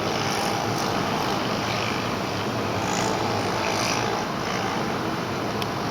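Steady engine noise of an airliner on approach, an even rush of sound with a faint steady tone in it.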